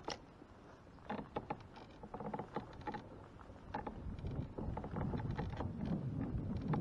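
Handling noise aboard a fishing kayak on the water: scattered light knocks and clicks in the first few seconds, then a steady rushing noise that grows louder from about halfway through.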